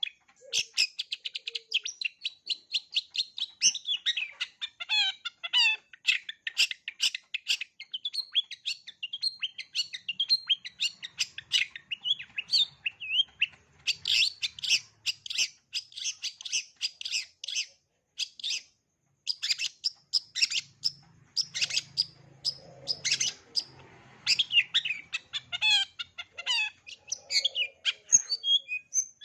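Long-tailed shrike (cendet) singing a long, fast run of chirping notes and mimicked calls, with a short pause about two-thirds of the way through.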